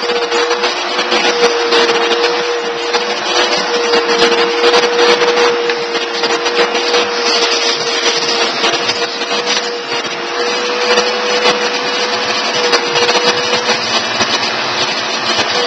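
Vacuum cleaner running with a steady whine, its nozzle rubbing through a cat's fur with a scratchy, crackly rustle.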